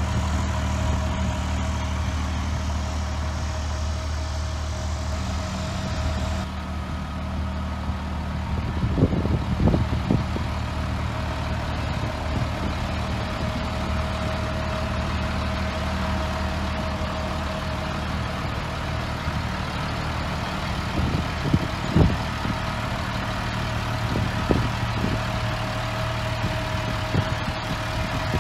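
Caterpillar 7.2-litre diesel of a 2002 Ford F750 dump truck idling steadily, with a steady high whine over the low engine note. A few short thumps come about a third of the way in and again about three quarters in.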